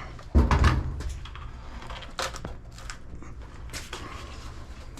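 Handling noise of a tool being fitted in among water-heater pipework: a heavy knock about half a second in, then scattered light clicks and taps.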